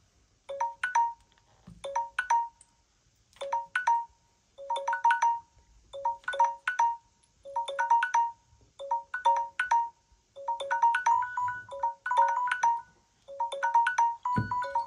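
Samsung Galaxy phones' timer alert tones: a short phrase of bell-like notes repeating about every 1.4 s. From about two-thirds of the way in, a second alert overlaps and the pattern grows denser. A brief thump comes near the end.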